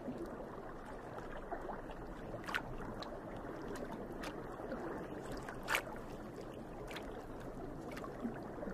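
Quiet, steady underwater ambience: a low watery rush, with a few faint clicks about two and a half and nearly six seconds in.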